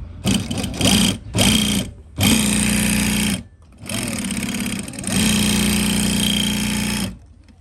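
SMITCH SM6-7d compound-feed walking-foot industrial sewing machine stitching through material about 3 mm thick. It runs in three short bursts, then in three longer runs of a second or two, and stops about seven seconds in.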